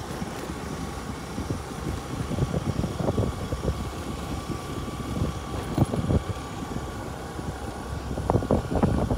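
Vehicle driving over a rough off-road track: a steady low rumble with frequent knocks and jolts, busier near the end.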